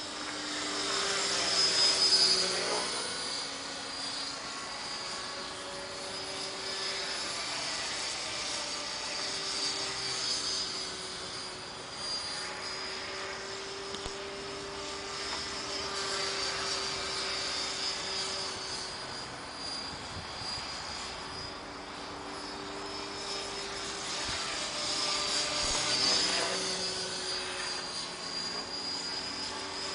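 Align T-REX 500 electric RC helicopter in flight: a steady high whine from the motor and drivetrain over the hum of the spinning rotor blades. It swells louder twice, about two seconds in and near the end, as the helicopter passes closer.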